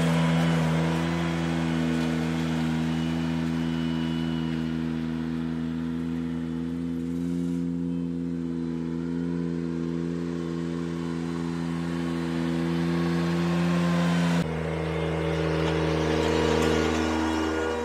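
Ventrac 4520 compact tractor's engine running steadily while it drives a power rake through a gravel driveway. The drone shifts abruptly about 14 seconds in and dips briefly near the end.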